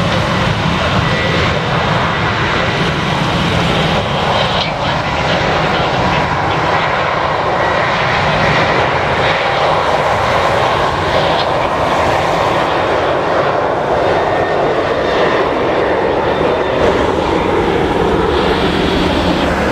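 Boeing 737-900ER's CFM56-7B jet engines at take-off thrust, a loud steady roar whose tone falls lower near the end as the jet passes.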